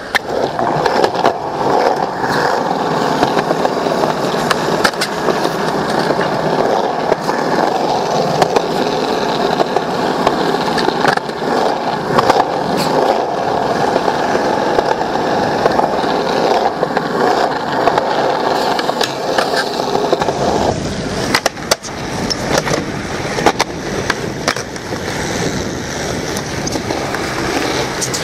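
Skateboard wheels rolling over pavement in a steady rumbling hiss, broken by sharp clacks of the board's tail popping and wheels landing. About twenty seconds in the rolling takes on a deeper rumble.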